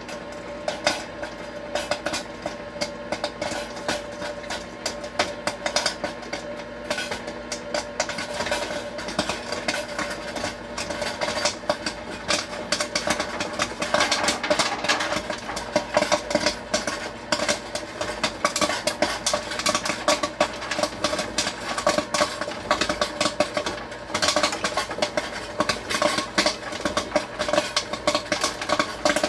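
Popcorn kernels popping inside a Nostalgia Coca-Cola kettle popcorn maker: rapid, irregular sharp pops that grow denser after about eight seconds, over the kettle's steady motor hum.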